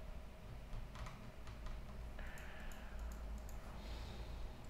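Faint clicking of a computer keyboard and mouse, a scattering of light clicks.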